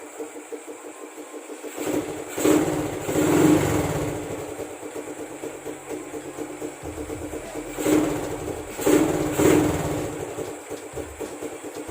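Honda RS125 motorcycle engine running through an Apido aftermarket exhaust pipe while warming up. It idles steadily, and the throttle is blipped a few times about two seconds in and again about eight seconds in.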